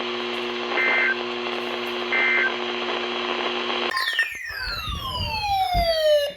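Radio static with a steady hum, broken by two short high data bursts about a second and two and a half seconds in: the end-of-message code of an Emergency Alert System / NOAA Weather Radio broadcast, closing a severe thunderstorm warning. About four seconds in the static cuts off suddenly, and several falling tones glide down over low rumbles.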